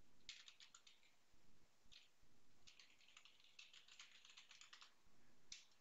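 Faint computer keyboard typing: a quick run of keystrokes near the start, a single stroke about two seconds in, a longer run in the middle and one last stroke near the end.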